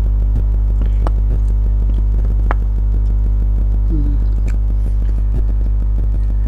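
Steady low hum at an even level, with a few faint clicks and taps.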